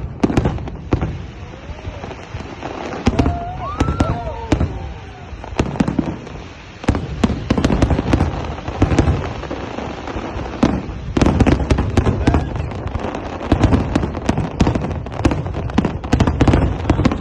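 Fireworks display: a continuous run of bangs and crackles of aerial shells bursting, coming thickest in the second half.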